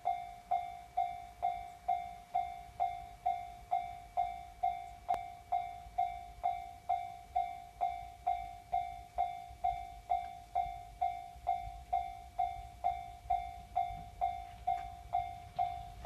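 Japanese railway level-crossing warning bell ringing steadily, a single struck tone repeating a little over twice a second, each strike dying away before the next: the crossing is closed for an approaching train.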